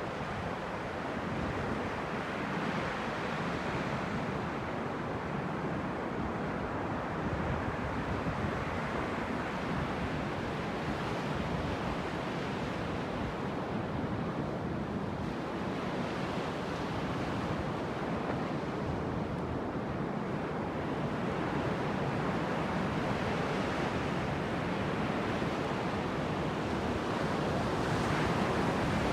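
Sea waves washing onto a beach in a steady surf, swelling and easing, with wind buffeting the microphone; a little louder near the end.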